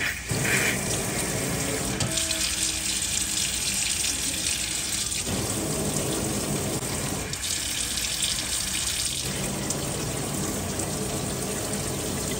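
Steady rush of running water, starting abruptly after a couple of clicks.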